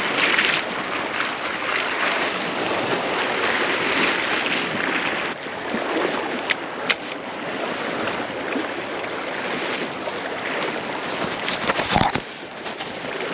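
Steady wash of sea waves and wind on the microphone, with a couple of light clicks about six to seven seconds in and a sharp knock about twelve seconds in.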